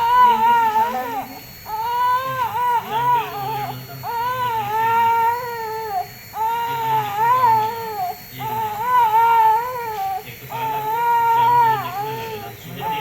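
One-year-old baby crying in a string of high-pitched wails, each a second or two long, with quick breaths between.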